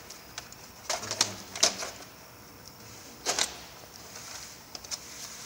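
Hard black plastic trays clacking against each other as they are handled and stacked. There are several sharp clacks about a second in, a strong one a little after three seconds, and lighter clicks near the end.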